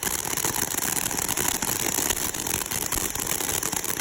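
A 'Spark Plug' ground fountain firework spraying sparks with a steady, hissy crackle.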